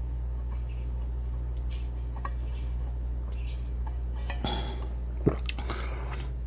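Eating utensil clinking against a dish several times, with small handling noises, over a steady low hum.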